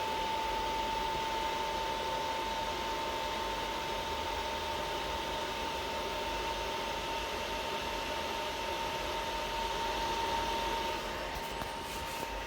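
Welding machine running idle: steady cooling-fan noise with a thin, constant high whine, easing slightly near the end with a couple of faint clicks.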